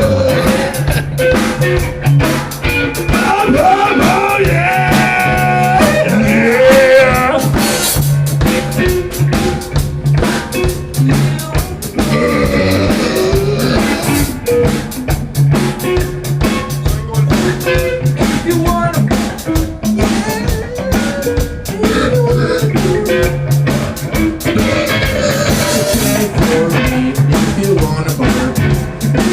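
Blues-rock band jam with drum kit and guitar, playing at a steady beat.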